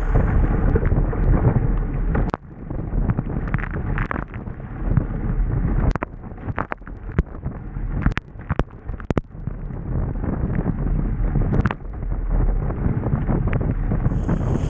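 Wind buffeting the microphone and water rushing along the hull of a Hobie Bravo catamaran sailing fast, sounding dull, with a few sharp slaps of spray and chop, most of them bunched together in the middle.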